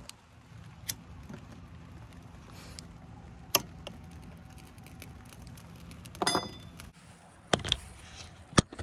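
A low steady hum from a small gas burner flame heating the grain puffer, with a few sharp handling clicks and a ringing metal clink about six seconds in.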